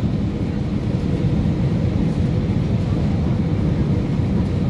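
Steady in-cabin roar of an Airbus A319 in flight, engine and airflow noise heard beside the wing-mounted engine, with a faint steady hum over it. The aircraft is on approach with the autopilot disconnected.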